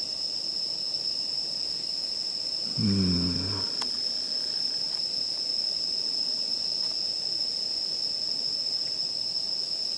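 A night-singing insect, a cricket-type caller, keeping up one unbroken, steady high-pitched trill. About three seconds in, a man makes a brief low vocal sound.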